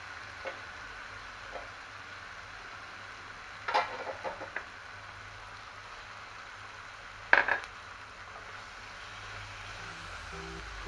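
Masala frying with a low steady sizzle in a non-stick wok, while chopped tomatoes are tipped in from a glass bowl: a quick cluster of clinks of the bowl against the pan about four seconds in, and a sharper clink a few seconds later. Background music starts near the end.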